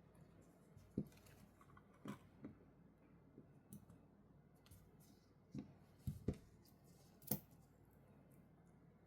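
Light clicks and taps from handling a wristwatch and its packaging, about seven at irregular intervals, the sharpest about a second in and near the end.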